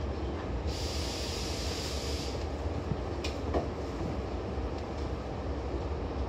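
Seibu 2000 series electric train running, a steady low rumble of the running gear heard from the floor above the line breaker. About a second in comes a hiss lasting under two seconds, and a sharp click falls about three seconds in.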